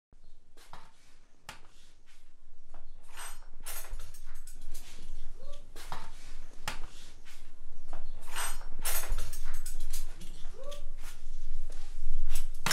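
Kitchenware being handled at a counter: a run of clinks, knocks and clatters, growing busier, with a short squeak twice.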